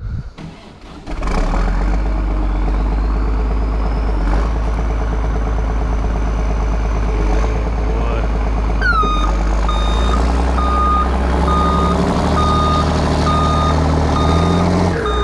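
Log skidder's diesel engine coming up loud about a second in and running hard under load as it pushes against a standing tree, with a high whine rising in pitch a few seconds in. About nine seconds in, its reversing alarm starts beeping steadily as the skidder backs off.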